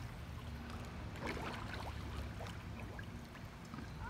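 Swimming-pool water lapping and trickling, with faint small splashes and drips over a low steady rumble.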